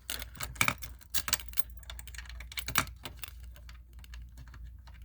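Metal keys jangling and clicking as a Simplex B key for a fire alarm pull station is handled: an irregular run of light clicks and rattles, with a few sharper clicks in the first three seconds.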